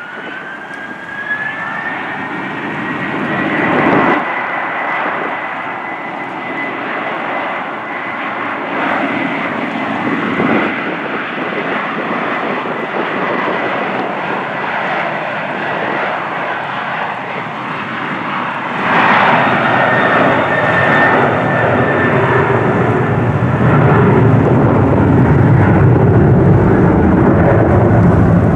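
Boeing 737-800's CFM56 turbofan engines at takeoff thrust during the takeoff roll. A whine rises in pitch over the first few seconds as the engines spool up, then holds as a steady high whine over a rushing noise. About two-thirds of the way through the sound swells, and a deep low rumble builds and grows louder near the end as the jet accelerates away.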